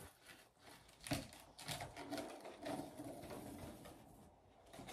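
Quiet rustling and light taps of a string and balloons being handled while they are threaded, with a sharper tap about a second in.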